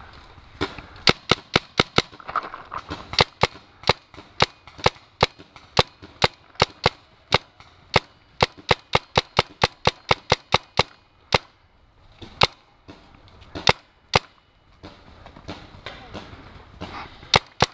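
Paintball markers firing: a long string of sharp pops, about three a second, thinning out about eleven seconds in, then a quick burst of shots near the end.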